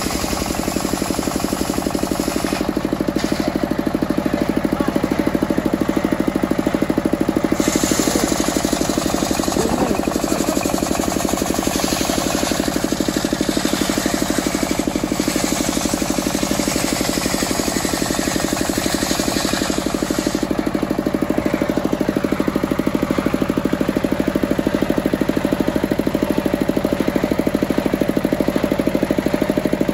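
Single-cylinder diesel engine running steadily with a fast, even knock, driving a circular saw that cuts teak. The hiss of the blade in the wood rises over the engine in stretches, heaviest from about eight to twenty seconds in, and drops away near the end as the board comes off.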